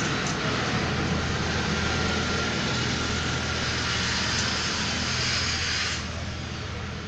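Bajaj Chetak scooter's single-cylinder engine running on a test after repair, a steady low hum with a loud hiss above it that drops off about six seconds in.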